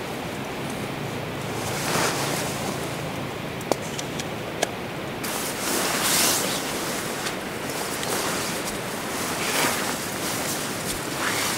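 Wind rushing through bamboo leaves and trees, a steady hiss that swells in gusts a few times, with a couple of faint clicks.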